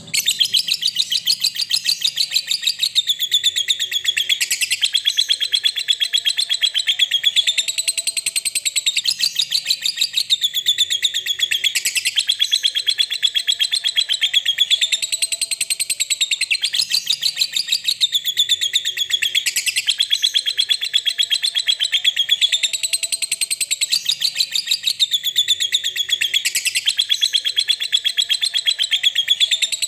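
Lovebird giving a long unbroken 'ngekek' chatter: a very fast trill of shrill, high notes that swells and dips in phrases about every two seconds.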